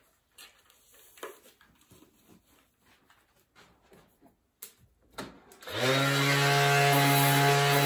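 Faint handling clicks, then about six seconds in a small handheld electric mini grinder/sander is switched on. It spins up and runs with a steady whine.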